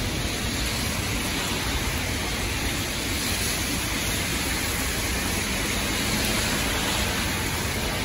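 Heavy rain falling steadily on wet paving and street, an even hiss.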